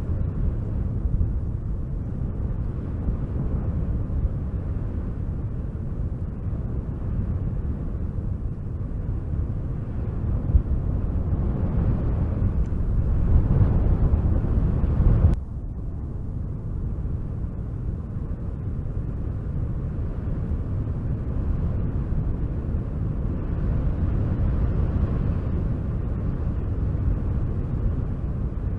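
Wind blowing in gusts, a low rushing rumble that swells a little past halfway and then drops off suddenly before carrying on somewhat quieter.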